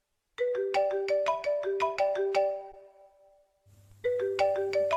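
Alarm ringtone in a marimba tone: a quick melody of struck mallet notes that rings out and dies away, then starts over about a second later.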